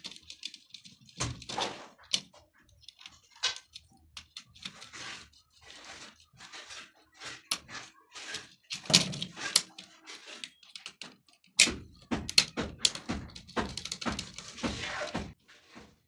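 Irregular clicks, taps and rustling of hands wiring a plastic modular switch board: wires being handled and pushed into the screw terminals, a screwdriver working the terminal screws, and the board knocking on the wooden bench.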